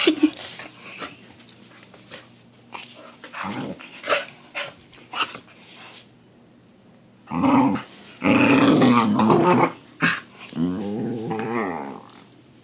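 Pit bull making its morning "talking" noises: a few short grumbles in the first half, then, after a pause, three longer, louder drawn-out vocal sounds, the last a pitched, wavering call that fades out near the end.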